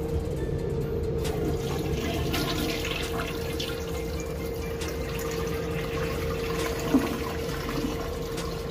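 Toilet flushing, its water rushing and swirling down the bowl.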